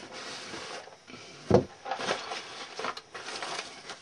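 A model car kit and its parts being handled: rubbing and rustling, one dull knock about one and a half seconds in, then a few light clicks.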